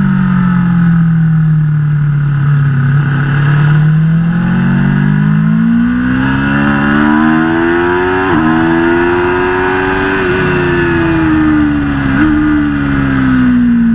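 Aprilia Tuono V4 motorcycle's V4 engine with Akrapovič exhaust, on track. The engine note drops, then climbs steadily for several seconds under acceleration. It breaks briefly about eight seconds in, peaks, and falls away with a short blip about twelve seconds in.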